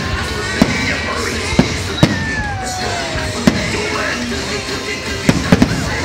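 Aerial fireworks shells bursting in the sky with sharp bangs at an uneven pace, about seven of them, three in quick succession near the end, over music playing underneath.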